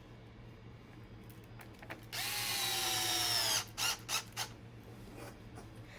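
Cordless electric screwdriver with a hex bit driving a servo mounting screw. It runs for about a second and a half, its whine dropping slightly in pitch as the screw tightens, then gives three short blips.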